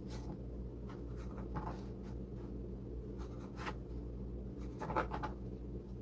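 A kitchen knife cutting through slices of white sandwich bread on a cutting board, heard as short, scattered scratchy rasps of the blade through the bread and crust. A steady low hum runs underneath.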